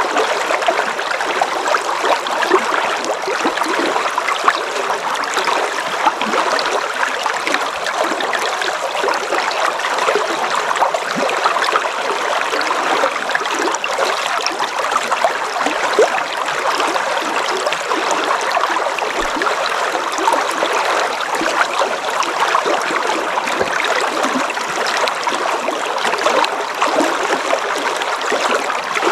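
A river running steadily: a constant wash of water with many small splashes over it.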